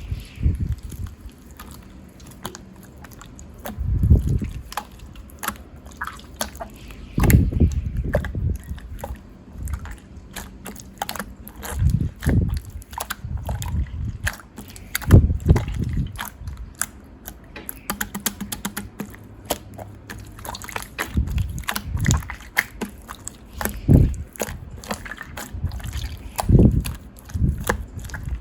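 Slime being pressed and squished by hand: wet squelches and many small crackling pops, with a heavier squelch every few seconds.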